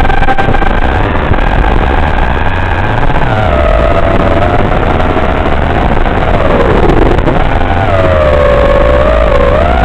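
Multirotor FPV drone's electric motors and propellers whining in flight, the pitch drifting up and down with the throttle and dipping noticeably about seven seconds in, over a strong hiss.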